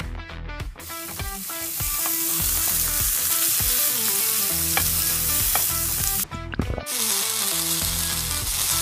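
Food sizzling and frying on a hot grill, a dense hiss that starts about a second in, cuts out briefly a little past six seconds, then resumes, over soft background music.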